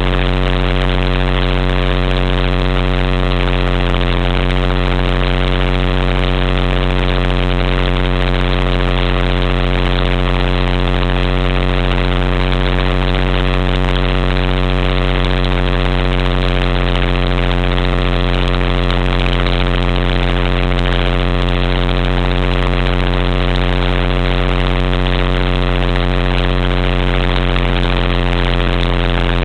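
HK-500GT electric RC helicopter in flight, heard from a camera mounted on the machine: a steady hum of motor and rotor, holding one even pitch.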